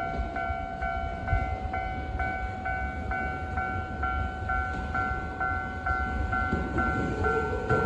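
Japanese railway level crossing warning bell ringing steadily, a little over two strokes a second. Near the end a train's rumble builds as it approaches the crossing.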